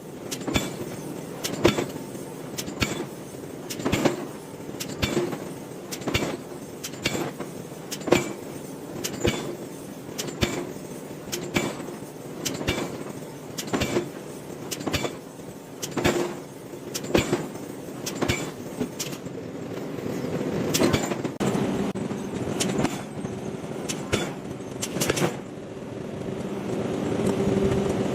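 Repeated hammer blows on hot iron being forged, a sharp strike roughly every half second, over a steady machinery hum that grows louder near the end.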